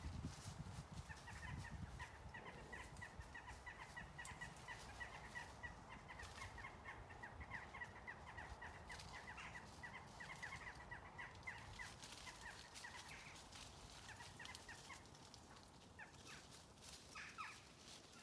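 Faint, rapid run of short repeated animal calls, lasting about fourteen seconds, then a few separate calls near the end.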